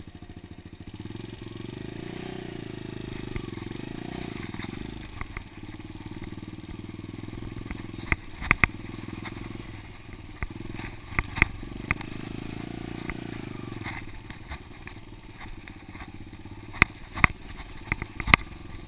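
Dirt bike engine being ridden on a rough track, revving up and easing off several times, with sharp knocks and rattles from the bike jolting over bumps, clustered in the middle and near the end.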